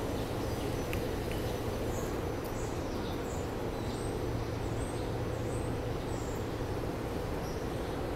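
Small birds chirping, a run of short high chirps repeating about twice a second through the middle, over a steady low background hum.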